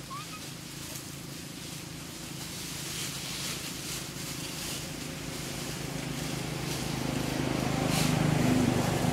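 A motor engine hums steadily and grows louder toward the end, as if a vehicle is approaching.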